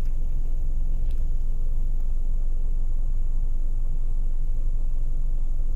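Steady low rumble of a car's engine idling, heard from inside the cabin.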